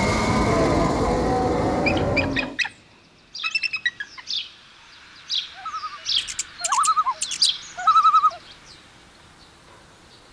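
A loud hissing, rattling whoosh that stops about two and a half seconds in, then a string of bird calls: short high chirps, quick trills and a few warbled notes, ending about two seconds before the end.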